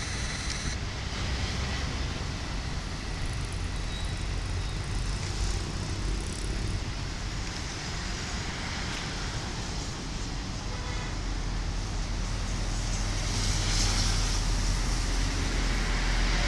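Steady rumble and hiss of a passenger train rolling away along the rails, growing somewhat louder over the last few seconds.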